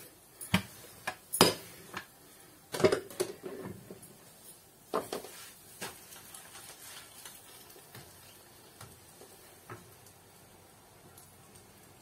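Kitchen utensils and cookware clattering and knocking: a string of sharp separate knocks in the first six seconds, then only faint small clicks.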